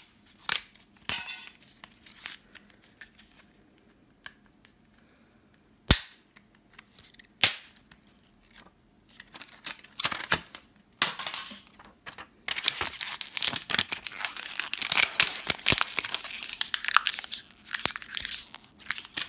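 A 3.5-inch floppy disk being torn apart by hand: a few sharp plastic snaps and clicks as the hard shell is pried open, then a long run of crinkling and tearing as the thin magnetic disk inside is crumpled and torn.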